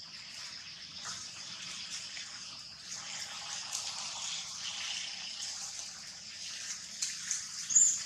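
Steady high-pitched hiss of outdoor ambience with scattered small rustles and clicks. A brief, sharp, high-pitched sound near the end is the loudest moment.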